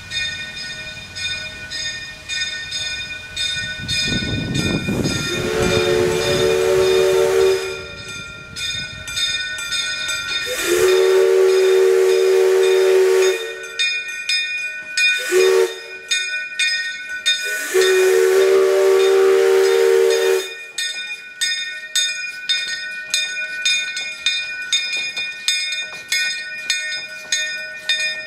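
Steam whistle of a small Henschel narrow-gauge tank locomotive blowing the grade-crossing signal on the approach: two long blasts, a short one, then a long one. Between and after the blasts the engine chuffs in a steady beat of about two to three a second as it comes closer.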